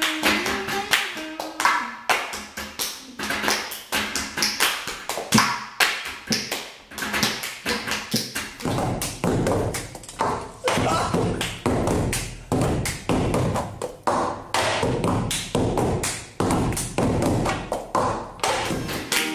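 Fast rhythmic tapping and clapping of the cup game: plastic cups are slapped, passed and knocked down on a wooden table, with hand claps. A few guitar notes die away in the first couple of seconds, and heavier thuds of cups on the table come in about halfway through.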